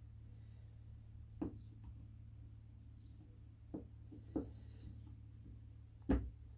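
Circlip pliers clicking against metal as they work at the circlip inside a motorcycle brake master cylinder: four short, sharp taps, the loudest near the end, over a steady low hum.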